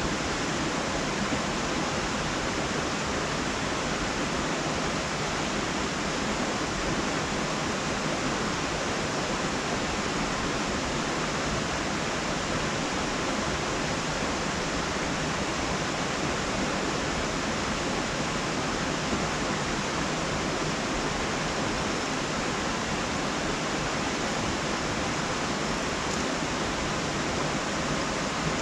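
A steady, even hiss with no speech and no changes.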